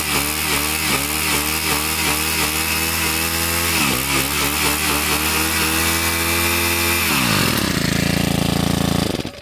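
Shindaiwa T344 string trimmer's two-stroke engine running fast, warming up after a cold start, its speed dipping and recovering about twice a second. About seven seconds in it drops to idle, and it is shut off near the end.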